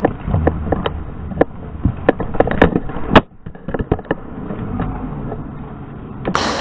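Roller hockey rink sound with dulled, slowed-down audio: a low rumble of inline skates on the plastic rink floor under a string of sharp clacks and knocks from sticks and skates, the loudest about three seconds in. Full, bright rink noise cuts back in near the end.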